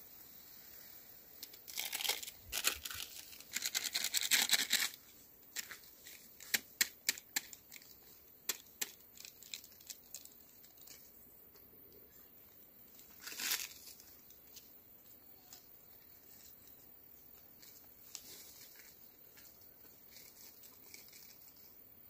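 Dry firewood sticks and leaves crunching and rustling as they are handled at an open wood fire, with a few seconds of dense crunching, then a run of sharp separate snaps, and one short rushing noise a little past the middle.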